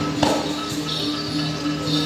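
Balinese gamelan music for a Barong dance: steady ringing metal tones, with a sharp struck note just after the start and a burst of jangling cymbals about a second in.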